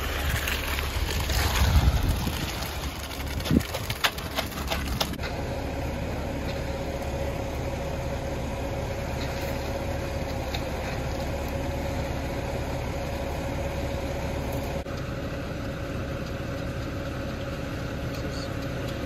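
Ready-mix concrete mixer truck's diesel engine running steadily while the drum turns and concrete discharges down the chute. A couple of sharp knocks come about three and a half to four seconds in, and a steady tone joins the drone about five seconds in.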